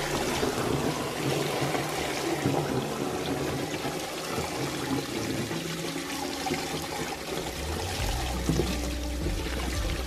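Dirty water from a carpet extractor's recovery tank pouring out of its drain hose and splashing through a metal floor-drain grate, a steady gush with no break. This is the tank being emptied after carpet extraction.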